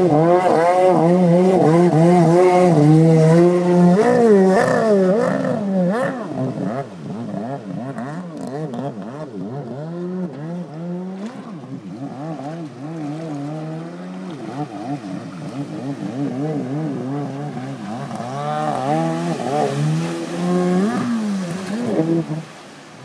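Kawasaki 750 SX stand-up jet ski's two-stroke twin engine running and revving up and down over and over as the craft rides. It is loudest in the first few seconds, drops back, and swells again near the end.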